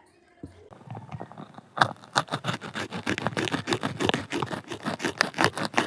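Fresh radish leaves and stalks being cut: a quick, irregular run of crisp, crunchy cuts, several a second, starting about half a second in. The leaves give a squeaky "khinch khinch" as they are cut.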